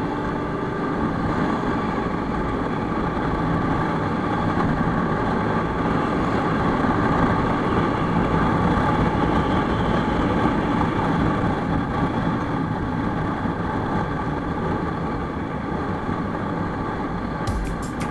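Motorcycle engine running steadily under way, mixed with road and wind noise, heard from on the moving bike.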